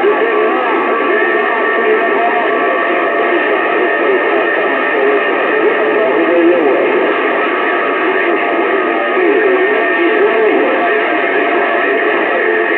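Music with singing coming through a CB radio, narrow and tinny, with nothing above the radio's cut-off.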